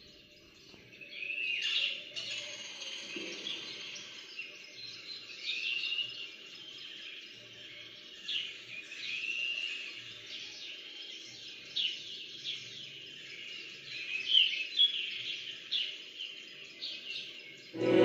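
Birds chirping and calling: many short chirps and curving whistled notes, some louder ones about 2, 6 and 14 seconds in, over a faint steady background hiss.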